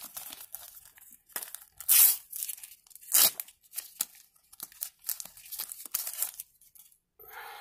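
Sticker packet wrapper being torn open and crinkled by hand, with two louder rips about two and three seconds in amid lighter rustling and crackling.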